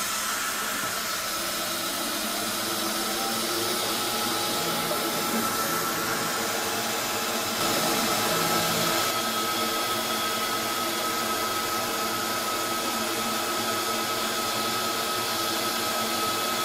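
xTool S1 40 W enclosed diode laser cutter running a cutting test in hardwood plywood: a steady rush of air from its air assist and extraction, with a steady high whine over it. A lower hum stops and starts several times as the laser head works through the test squares.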